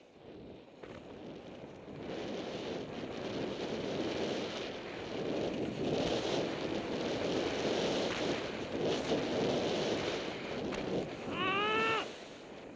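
Snowboard sliding and carving down packed snow, with wind rushing over the helmet- or body-mounted camera's microphone; it builds after the first second and is loudest through the middle. Near the end a person gives a short shout.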